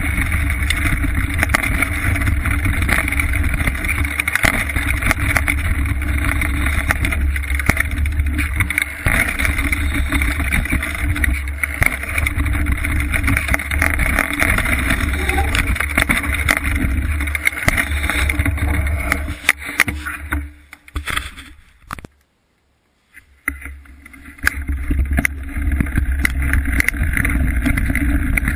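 Mountain bike riding a rough dirt trail, heard through a bike-mounted action camera: wind rumble on the microphone with many rattles and knocks from the bike over bumps. The sound drops out almost completely for a second or two about three quarters of the way through, then resumes.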